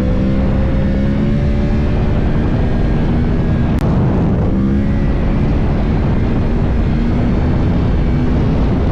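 Yamaha R1 inline-four engine running at a steady cruise under heavy wind rush on the microphone. The engine note dips briefly with a click about four seconds in, then holds steady again.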